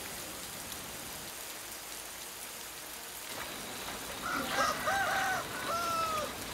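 Steady rain, then a rooster crowing about four seconds in: a run of short calls ending in one long, slightly falling note.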